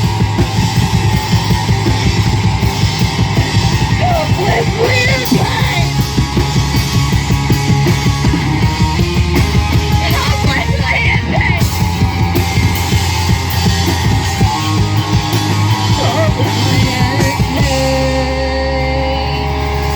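Live rock band playing loud and fast, drums pounding with distorted guitar and shouted vocals. Near the end the drums stop and a guitar chord is left ringing.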